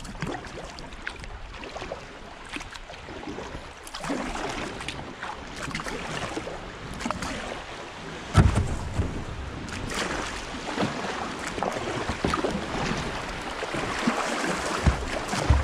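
Kayak paddling through rippling creek water: the water rushes and splashes, and the paddle strokes make small clicks and drips. A loud thump comes about eight seconds in and another near the end.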